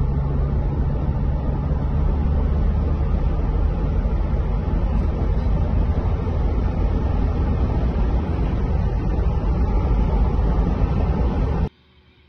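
Steady road and engine rumble heard from inside a moving car's cabin. It stops abruptly near the end.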